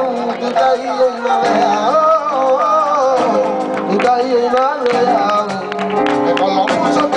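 A singer's voice in long, wavering, sliding phrases over a strummed acoustic guitar, performed live.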